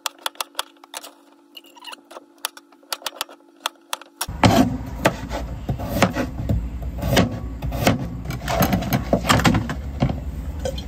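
Kitchen knife slicing carrot into rounds on a plastic cutting board: irregular sharp knocks of the blade striking the board. About four seconds in, a low rumble starts beneath the knocks.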